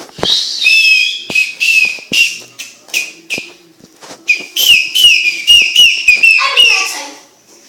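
Small toy whistle blown hard: a shrill tone in a few longer blasts, then a rapid run of short toots. The last ones slide down in pitch.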